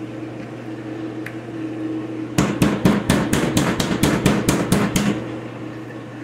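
Kitchen knife chopping through chicken cutlets on a cutting board: a quick run of about a dozen sharp chops, about four a second, starting a little over two seconds in, over a steady hum.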